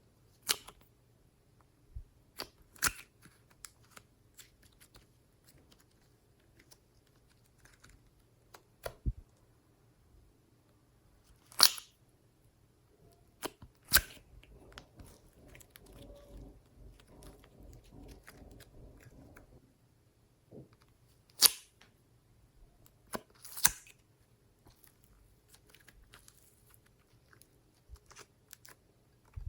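Glossy slime being worked by hand: scattered sharp sticky pops and clicks, a few much louder than the rest, with a stretch of soft squishing in the middle.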